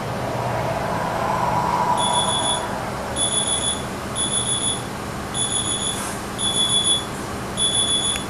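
Mobile phone alarm beeping, starting about two seconds in: short groups of rapid high beeps about once a second, over a low steady drone.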